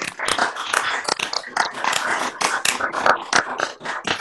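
Round of applause from many people clapping at once over a video call, heard as dense, uneven clapping through the call's audio.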